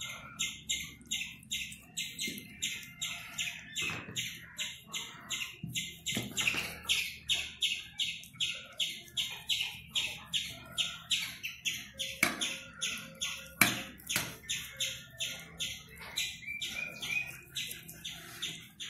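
A small bird chirping over and over in a quick, steady rhythm, about three chirps a second, with a few knocks as a knife scores a raw whole chicken on a steel plate.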